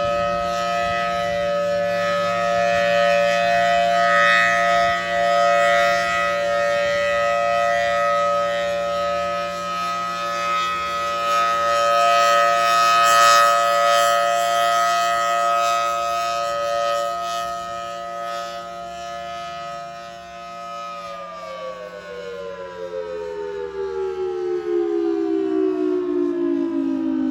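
Outdoor warning siren sounding a steady multi-tone chord. About three-quarters of the way through it begins to wind down, all its tones sliding downward in pitch together.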